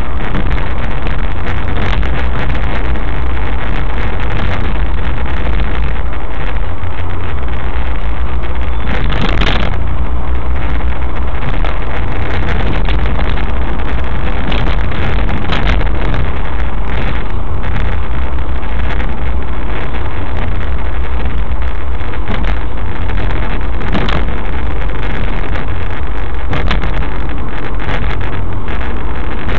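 Suzuki SX4 with an aftermarket K&N Apollo intake filter driving at a steady cruise: a loud, steady low rumble of engine and road noise. A brief louder bump comes about nine seconds in.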